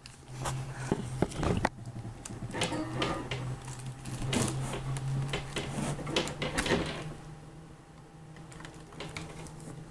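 Handling noise: a run of irregular clicks and knocks over a steady low hum, both dying down about seven seconds in, leaving only a few faint clicks.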